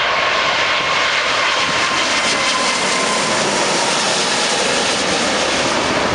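Jet engines of a Boeing 777-200ER passing low overhead on landing approach: a loud, steady rushing noise with a high whine that slides slowly lower in pitch as the airliner goes by.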